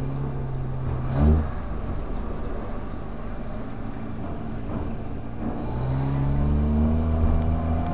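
Classic Austin Mini's four-cylinder engine heard from inside the car, running low while creeping along, with a short rev about a second in, then pulling away with its pitch rising gradually over the last few seconds.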